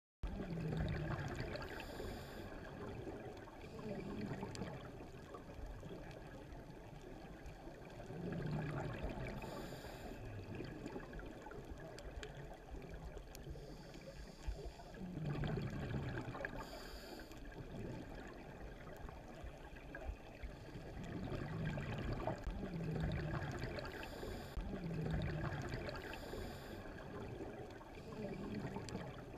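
Scuba breathing through a regulator recorded underwater: bursts of exhaled bubbles every few seconds over a steady underwater hiss.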